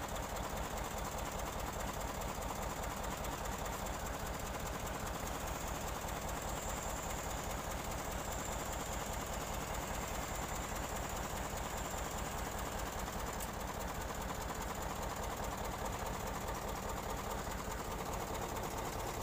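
Boom truck's engine running steadily with a fast, even pulse while the crane's hydraulic control levers are being worked.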